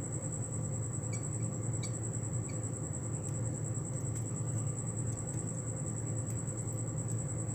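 A few faint small metallic ticks from split-ring pliers and steel split rings as treble hooks are fitted to a lure, over an insect's steady high trill and a low steady hum.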